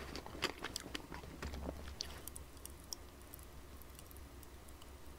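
Close-mic chewing of Baskin-Robbins Shooting Star ice cream, with faint scattered crackles of popping candy, denser in the first two seconds and sparse after. The candy has partly lost its fizz, so it pops only a little.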